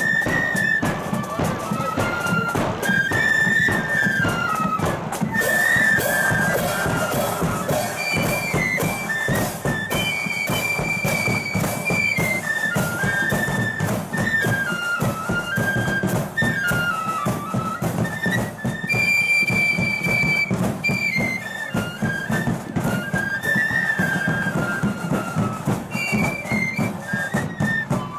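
Marching flute band playing a march in unison. The flutes carry a stepping melody over a steady beat of drums and cymbals.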